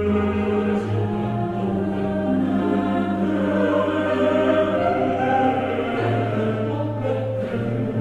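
Choral music: a choir singing long, slow held chords over a low bass note.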